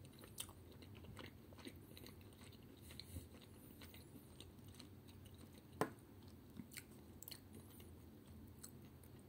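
Faint chewing of a mouthful of canned tuna in curry sauce, with a scatter of small sharp clicks as a metal spoon knocks and scrapes in the tin can, the sharpest about six seconds in.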